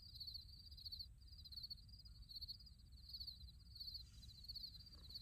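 Crickets chirping steadily in rapid, evenly repeating trills, faint, over a low even rumble.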